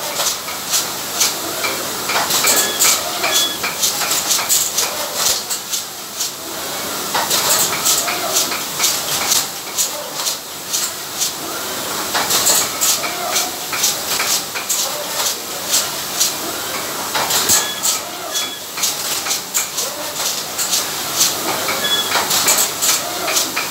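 Automatic bottle-capping machine running, with a steady rattle and clicking of plastic bottles and caps on the conveyor under a constant hiss. The clatter swells in busier bursts about every five seconds as the capping heads cycle.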